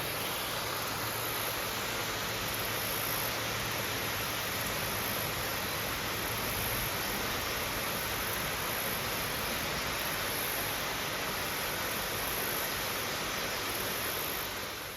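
Creek waterfall rushing steadily: an even, unbroken hiss of falling water, fading out at the very end.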